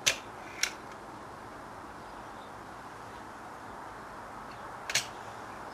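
Sharp metallic clicks of a .22 Webley Stingray break-barrel spring air rifle being cocked and reloaded between shots: two clicks close together at the start, and another near the end.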